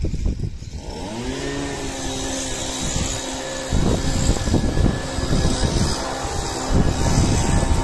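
Handheld leaf blower spinning up about a second in, its pitch rising and then holding at full speed, with a strong rush of air that grows louder a few seconds later as it blows loosened weed debris off the paving stones.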